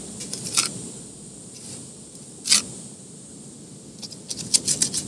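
Knife sawing through a grilled porterhouse steak on a plate in short, quick scraping strokes: a few at the start, one about halfway through, and a quick run near the end.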